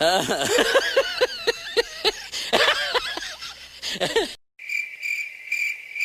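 Comedy sound effects: a rapid string of squeaky, pitch-bending cartoon chirps and squeals for about four seconds, then after a short break a steady, high, pulsing cricket-like trill, the stock 'crickets' effect.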